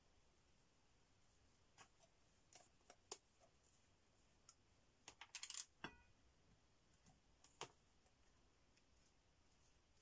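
Faint, scattered clicks and clinks of a paintbrush and plastic card knocking against a ceramic plate palette as paint is mixed, with a quick run of taps about five seconds in.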